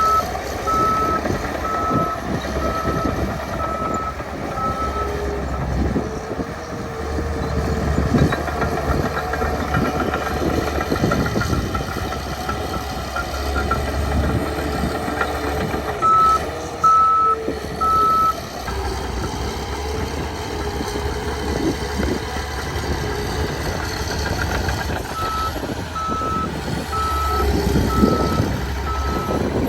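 A heavy diesel earthmover, the Caterpillar 816D, runs and works under load throughout. A reversing alarm beeps steadily about once a second in three stretches: at the start, about halfway through, and near the end.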